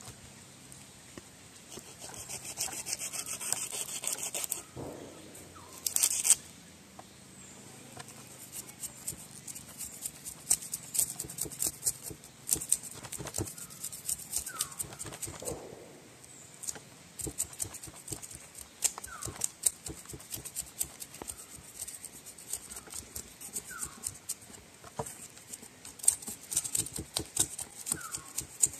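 A knife blade scraping along the skin of a whole tuna in quick, repeated strokes as the fish is scraped clean. The scraping is denser for a couple of seconds early on, then becomes a run of short, irregular scrapes and clicks.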